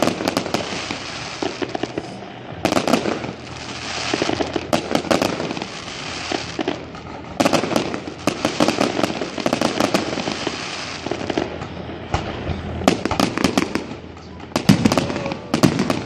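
Fireworks going off: repeated bursts of sharp bangs and crackling pops, coming in clusters every second or two.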